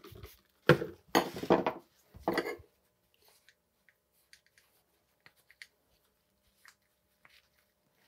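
Trigger spray bottle giving several quick squirts of cleaner onto a bike crank's chainring in the first couple of seconds. Faint rag wiping and small handling ticks follow.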